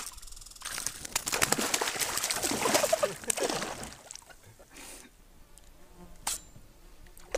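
Spinning fishing reel clicking and buzzing as a hooked bass is played in beside a canoe, with water splashing where the fish thrashes at the surface. This is loudest in the first half. A single sharp knock comes about six seconds in.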